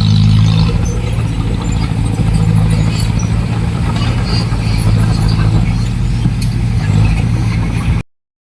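Heavy diesel engine of earthmoving equipment running loudly and steadily, with a deep hum that cuts off suddenly about eight seconds in.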